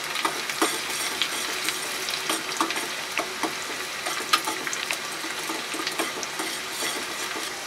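Sliced onions and cumin seeds sizzling in hot oil in a steel pan as they fry for a tadka, a steady hiss with frequent irregular crackles. A spoon stirs through them.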